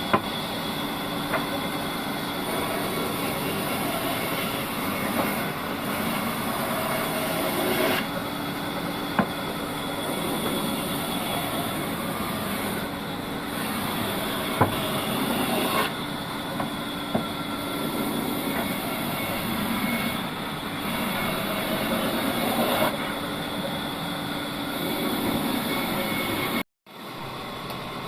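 Old log bandsaw sawmill running and cutting through wood: a steady, clattering machine noise with a few sharp knocks. It breaks off for a moment near the end.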